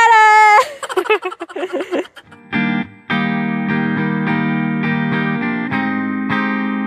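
A woman's loud, held shout lasting about half a second, then some broken vocal sounds. About two and a half seconds in, outro music of strummed guitar chords starts and keeps a steady beat.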